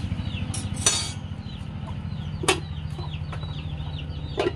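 A large pot of soup at a rolling boil, a steady low bubbling rumble, with chicks peeping over it several times a second. A metal utensil clinks against the pot about a second in, again midway and once more near the end.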